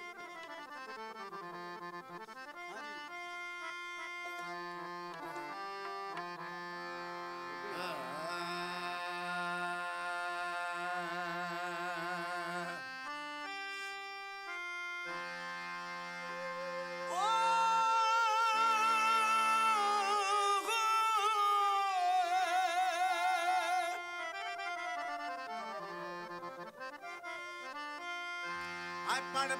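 Live Sufi folk music: a run of long held melody notes that move from pitch to pitch. About halfway through it turns louder for several seconds as a strongly wavering line with vibrato comes in.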